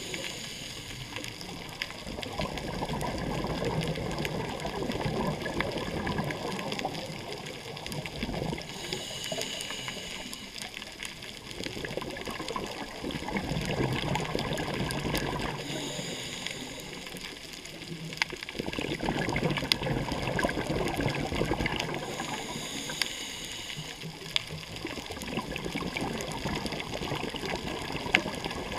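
Scuba breathing heard underwater: a hissing inhale through the regulator, then a long bubbling exhale, repeating about every six to seven seconds, four breaths in all.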